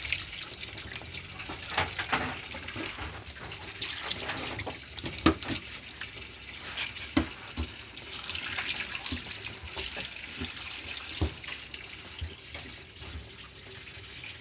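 Water running steadily from an open tap into a basin, a continuous hiss. Over it come scattered sharp knocks and scrapes of a knife on a plastic cutting board as a tilapia is filleted, the loudest about five, seven and eleven seconds in.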